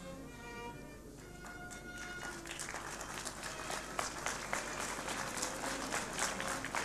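Instrumental processional music playing, joined about two and a half seconds in by an audience clapping, the applause growing louder.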